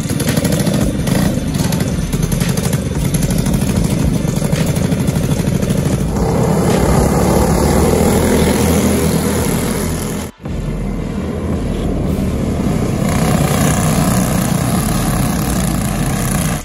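Several racing karts' Tillotson single-cylinder four-stroke engines running and revving as the karts race. The sound breaks off for a moment about ten seconds in.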